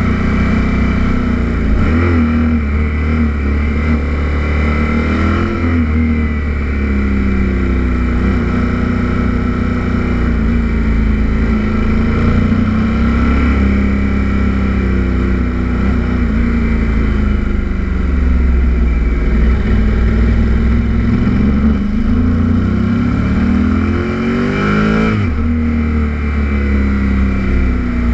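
Kawasaki Z800 inline-four motorcycle engine running at speed, its pitch rising and falling with the throttle, with a sharp climb in revs about 25 seconds in. Steady wind rush on the microphone underneath.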